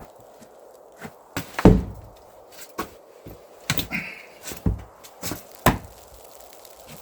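A series of irregular knocks and thumps on wood, the heaviest about a second and a half in, with a brief squeak near the middle.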